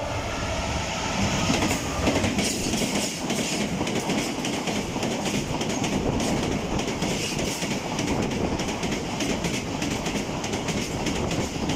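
Class 66 diesel freight locomotive and its wagons passing through, a steady rumble with repeated clicking of the wheels over the rail joints.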